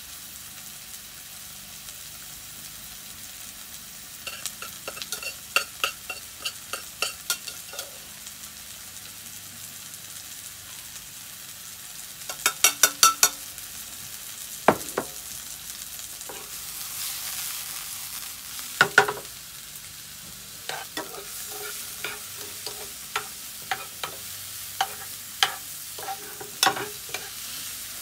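Sliced mushrooms sizzling steadily in a frying pan, sautéing dry without giving off water. Over the sizzle come repeated sharp clinks of utensils on pans and plates, including a quick run of clinks about halfway through.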